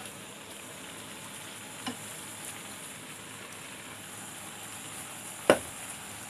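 Pan of polao rice simmering as its water cooks down, a steady bubbling sizzle. A few knocks of a wooden spatula against the bowl and pan as masala is scraped onto the rice, a faint one about two seconds in and the loudest near the end.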